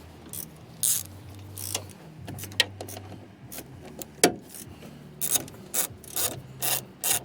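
Hand ratchet wrench clicking in short, irregular runs while a tail-light mounting bolt is turned.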